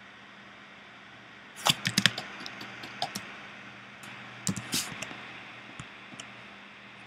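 Sharp clicking from computer input devices as the painting tools are worked: a quick cluster of clicks about a second and a half in, another about four and a half seconds in, and a few single ticks between and after, over a low steady hum.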